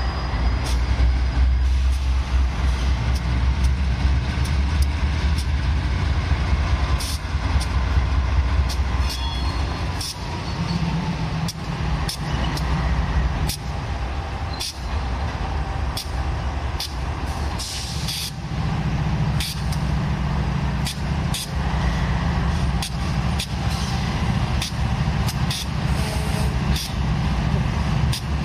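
Diesel locomotive engines running with a deep, steady rumble. The engine note steps up about eighteen seconds in, and sharp clicks are scattered across it.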